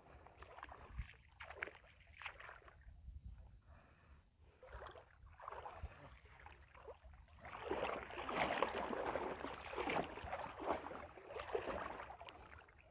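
Water sloshing and splashing as people wade through it working a fishing net, irregular and growing louder about halfway through.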